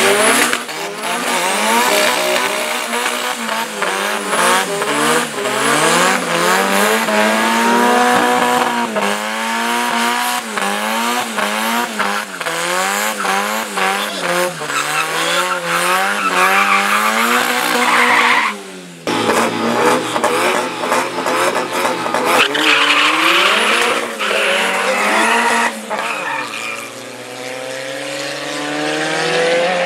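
Engines of two Nissan 1400 pickups revving hard through burnouts at the drag strip start line, with tyres squealing and spinning. Near the end the revs climb steadily as both launch and accelerate away down the strip.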